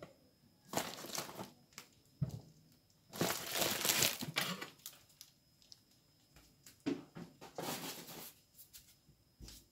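A plastic bag crinkling and rustling as it is handled and crumpled, in three bursts, the longest and loudest about three to four and a half seconds in, with a few light clicks between them.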